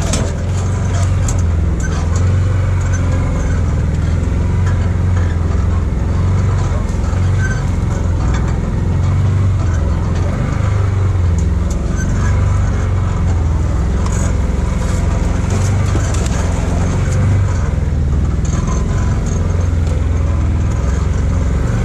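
Side-by-side UTV's engine running steadily as it drives along a rough trail: an even low drone with scattered light clicks.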